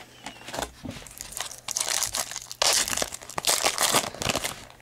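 Foil wrapper of a Topps Unrivaled football card pack crinkling as it is torn open, the loudest rustling from about two and a half seconds in.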